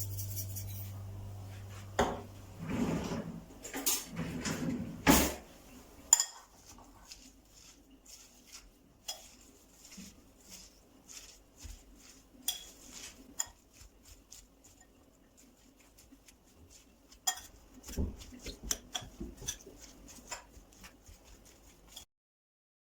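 Dishes and cutlery clinking and knocking in irregular clatters, with a few louder knocks among many small clicks.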